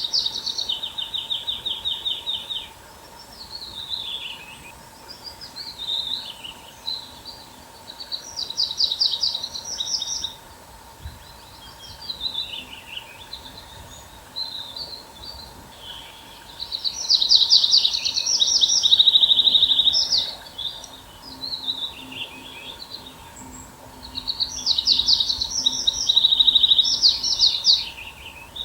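A songbird singing a loud, fast trilled phrase of two to three seconds, repeated four times about eight seconds apart, with softer chirps from other birds between the phrases.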